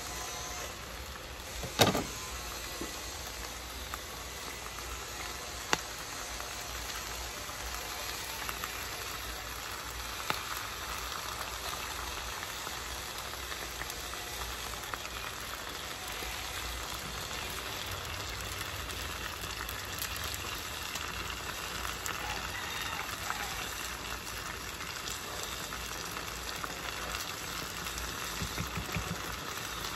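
Chicken, onions and bell peppers sizzling steadily in a frying pan while orange chicken sauce is poured in from a pouch. A sharp click comes about two seconds in, with a few fainter ones later.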